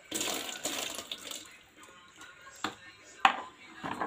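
Water poured from a plastic scoop into a large metal pot, splashing for about a second and a half as the pot is rinsed of its cleaning solution. Then a few sharp knocks follow, the loudest about three seconds in.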